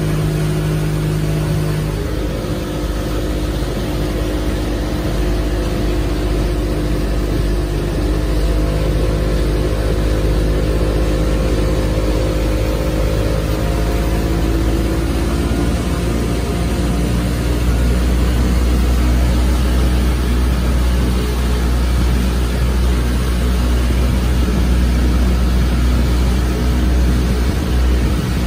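Motorboat underway at speed: a steady engine drone mixed with wind and water rushing past the hull. The low rumble grows stronger past the middle.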